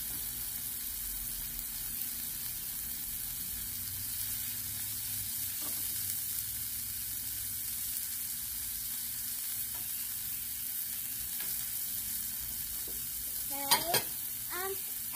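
Bacon, zucchini and halloumi slices sizzling steadily on a Blackstone flat-top griddle. Near the end comes a brief, sharp, louder sound.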